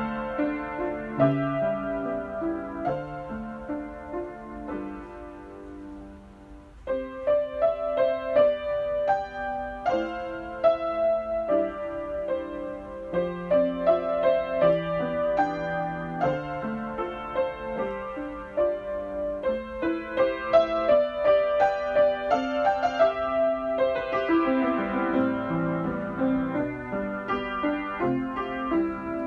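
Solo piano playing the film's score. It eases to a quiet passage a few seconds in and comes back stronger about seven seconds in.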